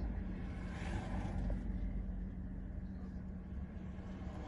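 Car engine idling, a steady low hum and rumble heard from inside the car's cabin.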